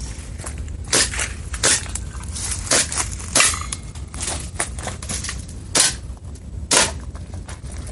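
Airsoft gun fired shot by shot, about six sharp cracks at uneven gaps of roughly a second, with BBs striking tin can targets, over a steady low rumble.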